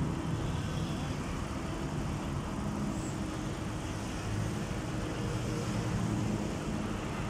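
Sany SY215C hydraulic excavator's diesel engine running steadily, a little louder for a couple of seconds near the middle.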